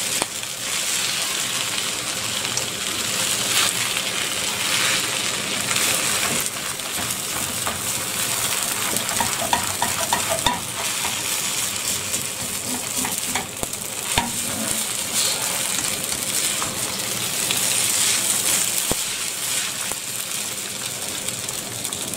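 Chow mein noodles and bean sprouts sizzling in a hot wok, stirred and turned with a spatula that scrapes and clicks against the pan now and then. The noodles are frying hard enough to catch and caramelise.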